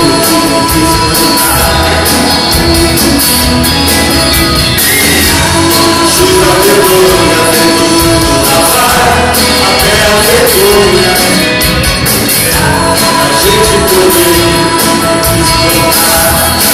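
Live band music in a large hall: acoustic and electric guitars and keyboard playing on, with a melody line that rises and falls every second or two.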